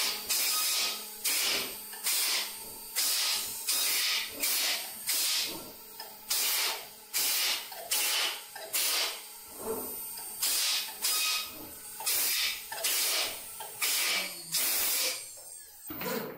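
CNC router spindle cutting a bassoon body turned on the 4th (rotary) axis, the bit biting in and out in regular bursts of high cutting noise, a little over one a second.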